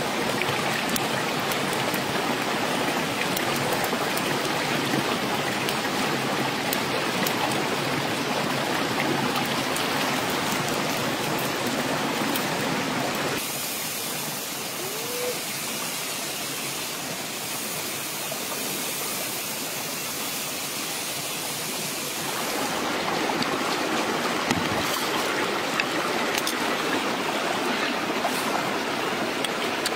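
Eggs with bitter gourd and chillies frying in hot oil in a pan: a steady, dense sizzle with fine crackles. For several seconds in the middle it drops to a softer hiss, with one short rising chirp.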